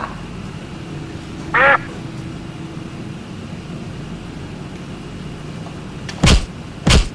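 A single brief squawk about a second and a half in, then two hard thumps near the end as open hands slap against a wall.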